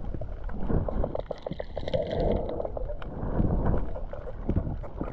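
Muffled water noise heard through a submerged camera: a low, steady wash with many scattered sharp clicks and crackles.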